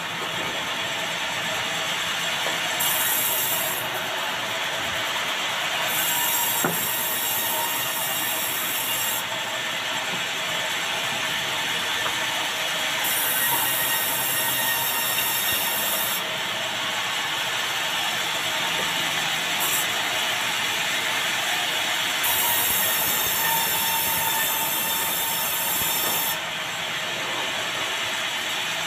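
Sawmill band saw running and cutting a big meranti batu log into boards, giving a steady metallic whine with saw noise. Its high hiss swells and drops back in stretches of a few seconds.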